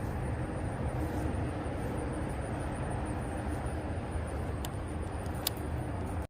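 Steady low outdoor rumble, with two faint short ticks near the end.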